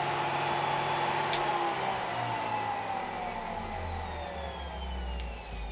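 Dremel rotary tool spinning down after being switched off: its whine falls steadily in pitch and fades. A low hum rises underneath in the second half.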